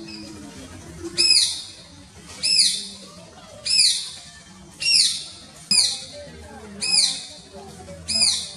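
Alexandrine parakeet giving loud, harsh squawks, about seven in a row, one roughly every second, each a short call that rises and falls in pitch.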